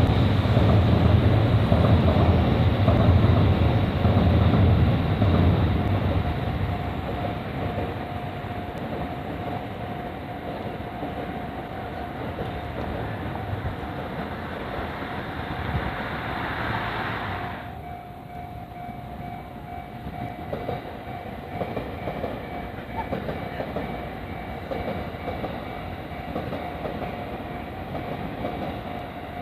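A train passing, its heavy low rumble and wheel clatter loud for the first few seconds and then fading. A thin steady high tone sounds throughout. About 18 seconds in, the sound abruptly turns duller.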